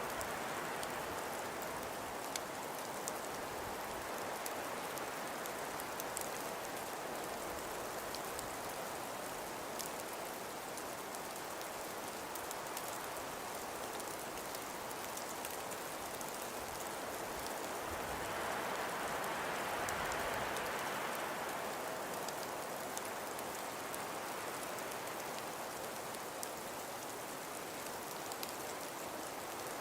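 Wind-and-snowstorm ambience: a steady hiss of wind with a fine patter of ticks, swelling in a gust about two-thirds of the way through.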